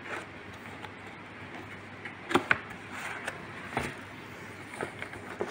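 Cardboard keyboard box being handled and opened: a handful of short, sharp taps and scrapes of cardboard, the two loudest close together about two and a half seconds in, over a faint steady hiss.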